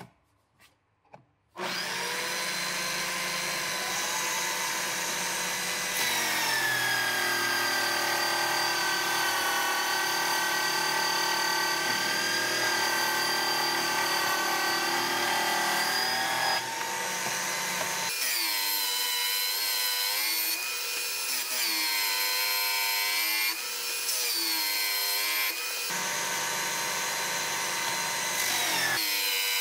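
Power drill driving a homemade sanding drum, starting about a second and a half in and running with a high motor whine. The whine sags and recovers in pitch several times as a wooden board is fed under the drum and loads the motor, with the sandpaper rasping on the wood.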